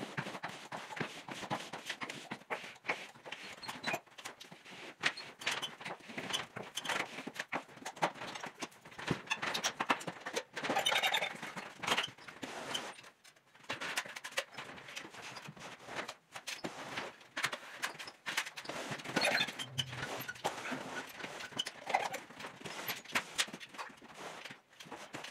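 Drywall knife scraping joint compound along the board seams, in irregular scrapes and clicks, with the knife clacking and scraping against a mud pan as it is loaded and wiped clean. This is a level 2 finish pass.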